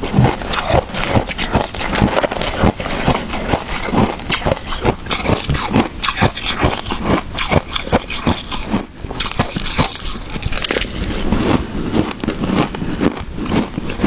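Shaved ice with matcha being bitten and chewed close to the microphone, a dense run of crunching and crackling several times a second.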